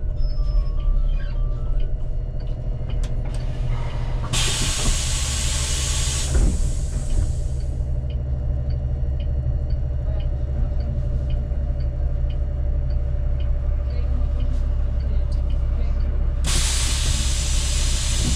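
City bus diesel engine running steadily, with two long hisses of compressed air, one about four seconds in and one near the end, as from the bus's pneumatic doors or air brakes. Faint regular ticking runs between the hisses.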